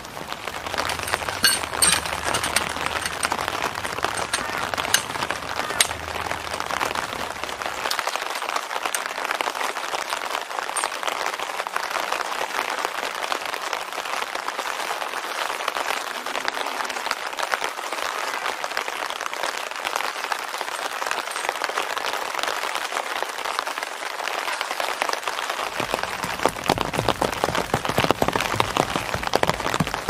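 Rain falling steadily, a dense patter of fine drops.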